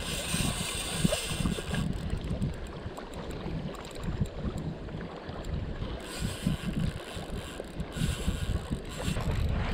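Wind buffeting the microphone in gusts, a low rumble with patches of hiss.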